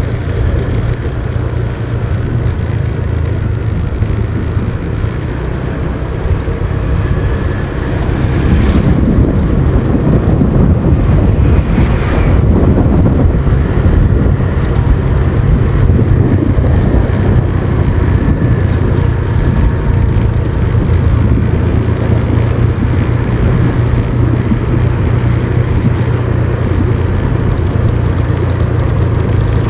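Motorcycle engine running at a steady pitch under a rush of wind on the microphone, the whole getting louder about nine seconds in.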